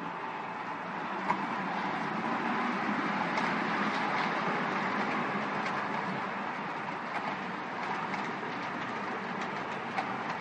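Model train running along its track, a steady whirring rumble of motor and wheels with a few sharp clicks over rail joints.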